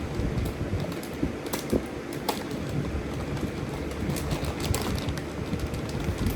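Cardboard box and packaging being handled and opened: irregular clicks, taps and scrapes over a steady low rumble.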